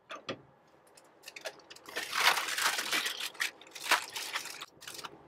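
Double-layered aluminium foil crinkling and rustling as a foil-wrapped cut of meat is handled and set onto a smoker's grate, with scattered light clicks; the densest crinkling comes about two seconds in.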